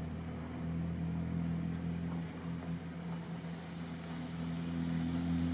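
An engine running steadily, giving a low, even hum that holds through the whole stretch.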